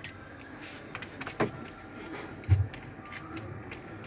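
Scattered small clicks and taps of laptop parts being handled and fitted during reassembly, with one dull thump about two and a half seconds in.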